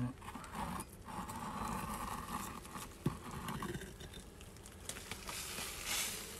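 A stone block scraping and grating against stone and grit as it is worked loose by hand and pulled out of a rubble wall, with a sharp knock about three seconds in.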